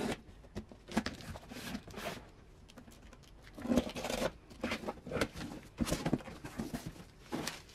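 Small blade slitting packing tape on a corrugated cardboard box, with the cardboard flaps pulled open and handled: an irregular run of scrapes, rustles and short knocks.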